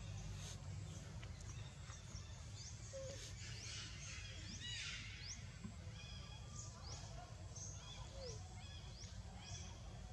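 Outdoor ambience of birds calling: short high chirps that sweep up in pitch, repeated every half second or so, busiest about four to five seconds in, over a steady low rumble.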